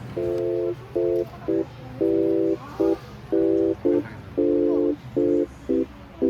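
Electronic buzzer-like beeps: one fixed-pitch tone switching on and off in an irregular pattern of short and long beeps, like Morse code.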